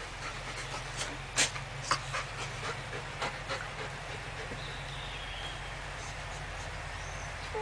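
A yellow Labrador retriever lying on its back and panting, with a few sharp clicks, the loudest about one and a half and two seconds in.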